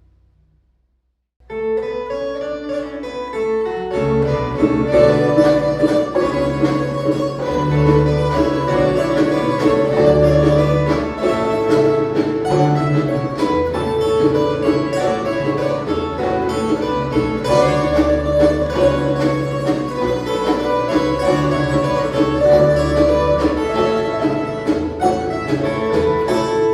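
Ensemble of violas caipiras (Brazilian ten-string folk guitars) playing a Christmas tune. It starts after about a second and a half of silence, and a bass line joins about four seconds in.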